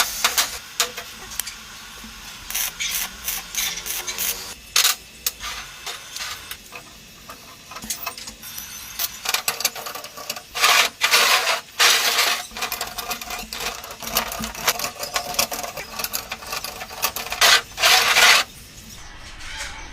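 Metalworking with welding: a run of sharp metallic clicks and knocks, with longer bursts of crackling about halfway through and again near the end.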